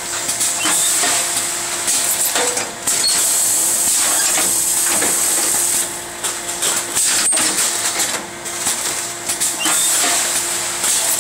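Fully automatic form-fill-seal packing machine running, with a steady high hiss and a faint hum. Sharp clicks and clacks from its pneumatically driven sealing mechanism come about every two and a half seconds, the loudest about seven seconds in.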